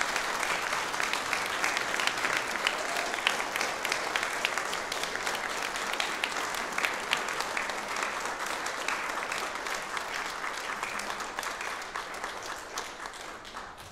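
Congregation applauding, many people clapping at once, dying away near the end.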